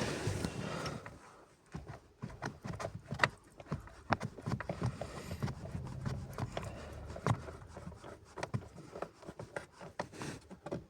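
Irregular clicks, taps and scrapes of a Torx T20 driver working a self-tapping screw out of a plastic cover under a car's dashboard.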